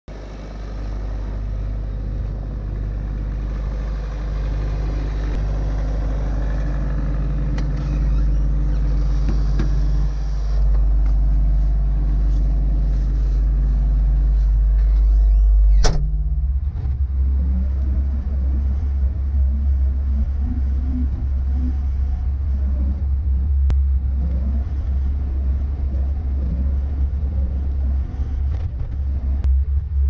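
Bobcat S595 skid-steer's diesel engine running, growing louder in steps over the first half. After a sharp click about halfway through, it is a deep, steady rumble heard from inside the cab.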